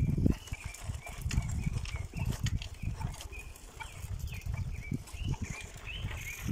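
Bicycle riding along a bumpy dirt road: irregular rattles and knocks from the bike, with wind gusting on the microphone.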